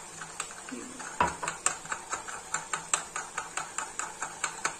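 Metal spoon stirring yogurt and chutney in a small ceramic bowl, clinking against the bowl's sides in quick, regular strokes of about three or four a second. A heavier knock comes about a second in.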